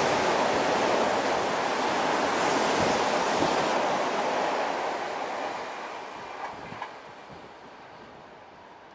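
Electric commuter train running close past, a loud steady rush of wheels and running gear that fades away over the second half as the train pulls off. Two short clicks come a little before the end.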